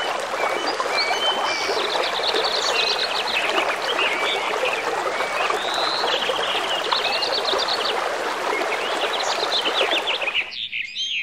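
Steady rush of heavy rain splashing, with small birds chirping over it. The rain cuts off suddenly about ten and a half seconds in, leaving only the birdsong.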